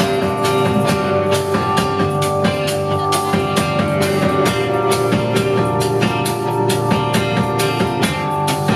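Live band playing an instrumental passage between verses: banjo, upright double bass and drum kit, with a steady drum beat.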